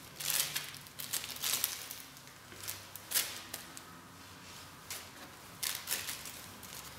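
Small plastic bag crinkling and rustling in the hands as it is handled and opened, in irregular short bursts with quieter handling in between.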